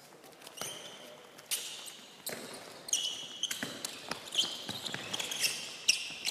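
A handball bouncing and players' shoes squeaking on a sports hall floor during a drill: a string of separate thuds, several followed by short high squeaks.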